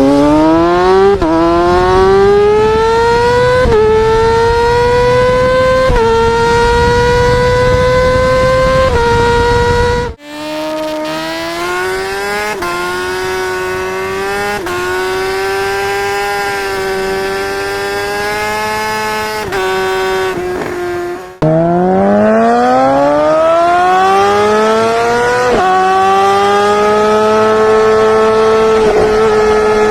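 Onboard exhaust of 600cc supersport motorcycles at full throttle, in three clips cut back to back about 10 and 21 seconds in. Each clip is a high-revving engine climbing in pitch through several quick upshifts; the middle clip is quieter.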